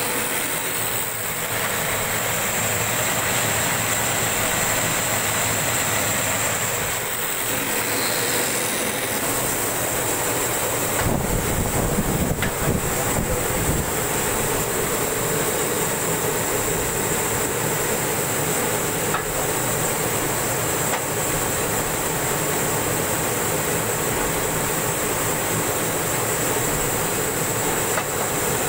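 Carton gluing machine running steadily: a constant mechanical clatter of belts and rollers with a thin steady hum and whine, and scattered sharp clicks. A deeper rumble joins about eleven seconds in and stays.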